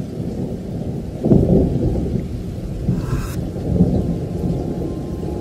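Low, noisy rumble, swelling about a second in and again near four seconds.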